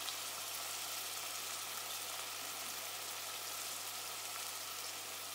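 Chicken breast pieces and onion frying in a stainless steel pot: a steady, soft sizzle with no stirring.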